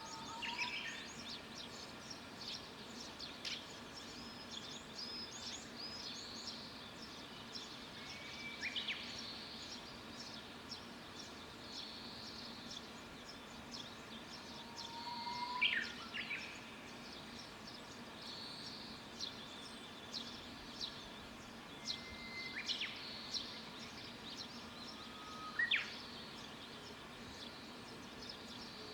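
Wild songbirds singing and chirping. Many short high chirps go on throughout, and a whistled song of a held note followed by a quick rising phrase repeats every several seconds, over a steady low background hum.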